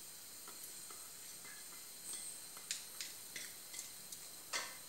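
Faint clicks and light scrapes of a steel bowl against fingers and the rim of a pressure cooker as soaked rice is tipped and pushed out of it, with a slightly louder tap near the end.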